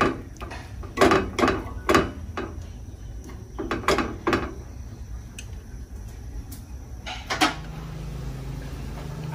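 Wooden chopsticks knocking and scraping against a small metal pan of braising fish: a run of sharp clacks about every half second for the first few seconds, fewer and fainter after, with one more near the end. A steady low hum sets in near the end.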